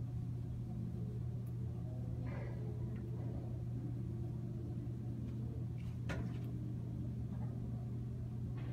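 A steady low hum, with faint rubbing from a whiteboard eraser wiping the board and a light tap about six seconds in.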